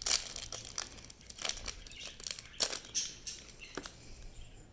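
Foil wrapper of a Pokémon booster pack crinkling and tearing as it is ripped open, in a string of irregular sharp crackles that thin out near the end.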